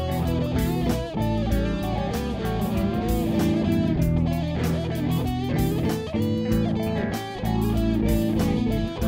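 Instrumental music led by electric guitar, over held bass notes and a steady beat.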